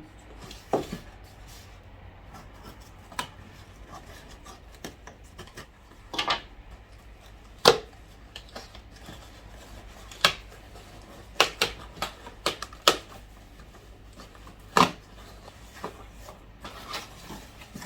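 A package being opened and unpacked by hand: scattered knocks, rubs and scrapes of cardboard and packaging at irregular intervals, with a few longer scraping sounds.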